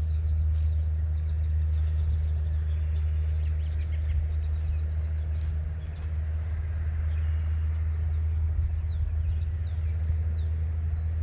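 Steady low outdoor rumble, with small birds chirping now and then.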